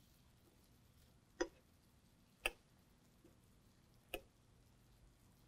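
Metal spoon knocking against the rim of a frying pan while basting fish with melted butter: three sharp clicks, the first about a second and a half in, the next a second later and the last near four seconds, over an otherwise near-quiet background.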